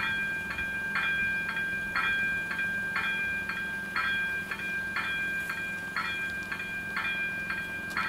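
Level-crossing warning bell on AŽD 97 crossing signals ringing in a steady rhythm of about two strikes a second, alternating louder and softer, with a held ringing tone between strikes: the crossing is active, warning of an approaching train.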